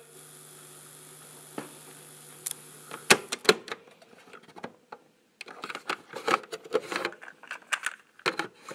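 Pause between recited verses: a steady low hum for about three seconds, then a few sharp clicks and faint, scattered exclamations and murmurs from the listeners.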